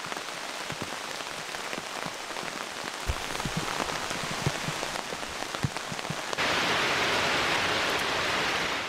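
Steady rain falling on a tent's rain fly, with scattered soft drop thuds. About six seconds in it jumps abruptly to a louder, heavier rain.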